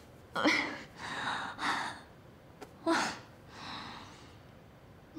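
A woman's gasping breaths and sighs, about five short ones in a row, three of them sharper and louder.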